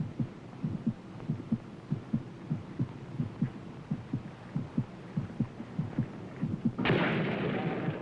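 A steady heartbeat on the soundtrack: evenly repeated low thumps. About seven seconds in, a louder rush of noise swells over it briefly.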